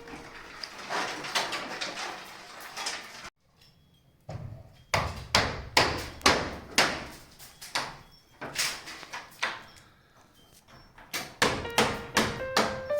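Repeated sharp hammer blows, about two a second, broken by a short silent gap about three seconds in.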